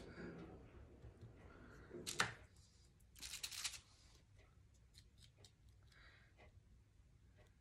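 Rustling and crinkling of plastic sheeting and foil being handled on a craft table, loudest about 2 s in and again around 3 to 4 s in, then a few faint clicks and taps.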